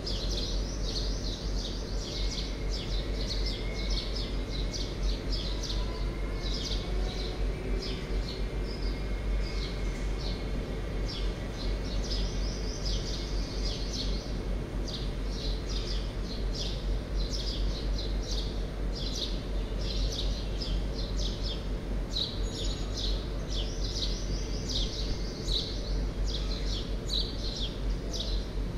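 Many small birds chirping continuously in a dense, overlapping chorus over a steady low hum.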